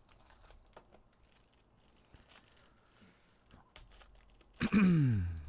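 A foil trading-card pack wrapper being torn open and crinkled by hand, with faint crackles and clicks. Near the end a person's voice comes in much louder, one drawn-out sound falling in pitch.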